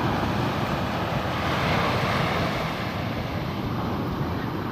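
Sea surf rolling onto a beach in strong wind, with wind buffeting the microphone: a steady rushing noise that swells about two seconds in.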